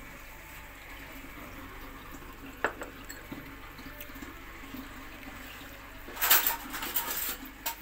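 Steady faint hiss of kitchen activity by the stove, with one sharp knock about two and a half seconds in and a loud burst of clattering and rustling near the end.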